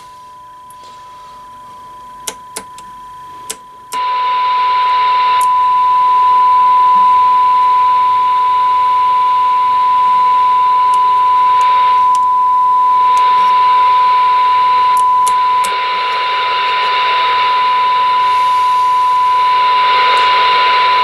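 Steady test tone from a signal generator coming through the Kenwood TM-621A's speaker. It is faint at first, with a few sharp clicks. About four seconds in the squelch opens and the tone turns loud, buried in static hiss. The noisy reception is the sign of the radio's weak 220 MHz receiver, which does not reach full quieting until a strong signal.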